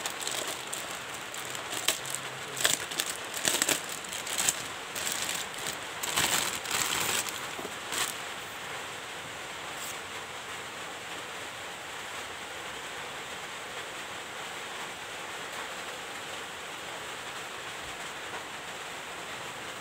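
Plastic packaging crinkling in irregular bursts as it is unwrapped by hand, stopping about eight seconds in; after that only a steady hiss.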